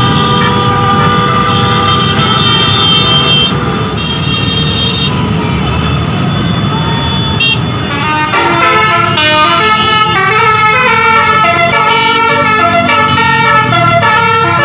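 Telolet basuri musical air horn on a tour bus playing loudly: held chords of several horn tones at first, then, about halfway through, a quick tune of short notes stepping up and down.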